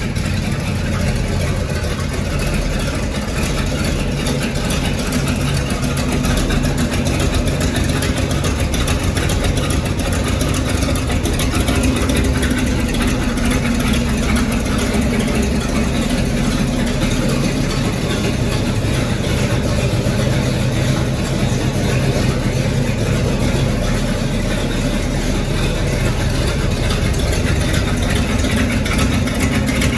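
Chevrolet 348 V8 in a 1937 Ford hot rod pickup idling steadily through short open headers while warming up.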